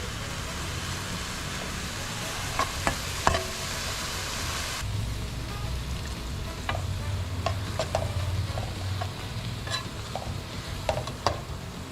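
Tomato sauce sizzling in a nonstick frying pan while a spoon stirs it, with scattered light clicks of the utensil against the pan. The hiss drops suddenly a little under halfway through.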